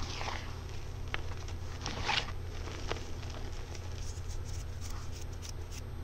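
Hands squeezing and raking a heap of fine powder, crumbling its clumps: soft crunching and swishing, with a run of small crackles near the end.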